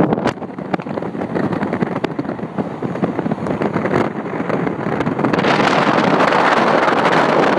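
Wind buffeting the microphone over the road noise of a moving vehicle, crackling and growing louder about five seconds in.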